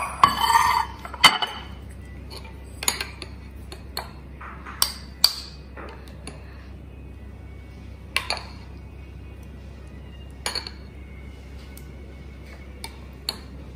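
Spoon clinking and scraping against a glass bowl and a glazed ceramic bowl while thick yogurt raita is spooned from one to the other: a scattered series of light, sharp clinks over a low steady hum.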